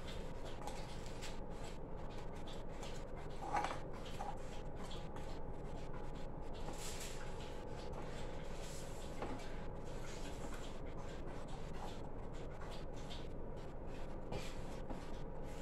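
Quiet room with a faint steady hum, soft rubbing and light taps of small objects on a table, and one slightly louder knock about three and a half seconds in.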